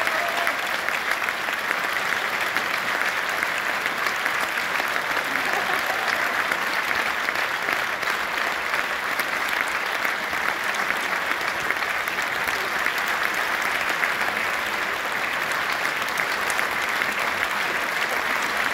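Large theatre audience applauding steadily: dense, continuous hand-clapping.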